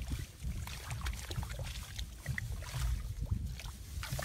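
Scattered small squelches and splashes of wet mud and water, as if hands are digging at a muddy fish hole, over a steady low rumble on the microphone.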